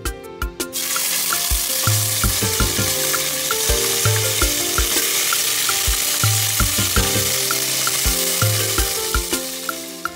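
Jollof mix tomato paste sizzling as it fries in hot vegetable oil in an aluminium pot, the sizzle starting about a second in and easing near the end. Background music with a steady beat plays under it.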